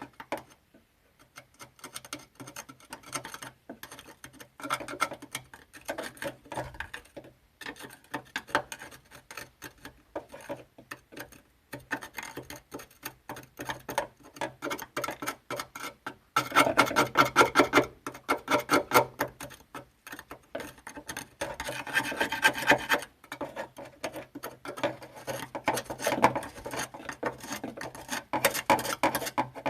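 Rapid back-and-forth rasping strokes of hand abrasion on the steel body of a Honda Life, working paint and rust off the panel. The strokes run on with short pauses and grow louder for several seconds past the middle.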